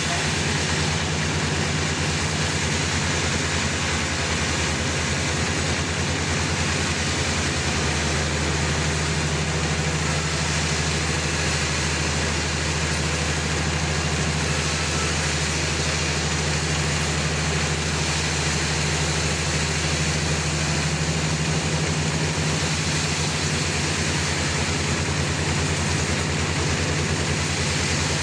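Sawmill running with a steady low engine drone. The hum shifts slightly about eight seconds in and again about two-thirds of the way through.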